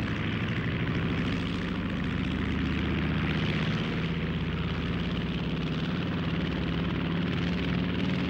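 Piston engines of a twin-engine propeller bomber running steadily as it taxis, an even propeller drone with a hissing edge.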